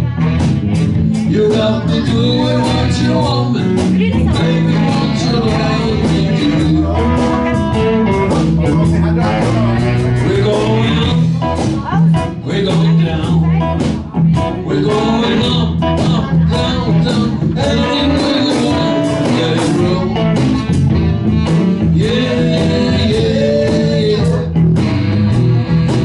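Live band playing a blues-style song: a voice singing over guitar, with a steady beat.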